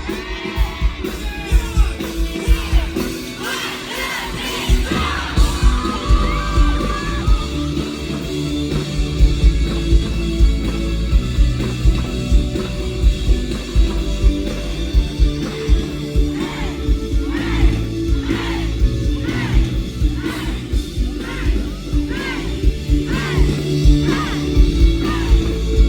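Live rock band playing an instrumental stretch with a steady kick-drum beat and bass, with crowd yells and cheers over it.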